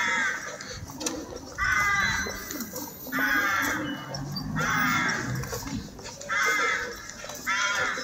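A crow cawing repeatedly: a run of harsh calls, each about half a second long, roughly one every second and a half, over low street background noise.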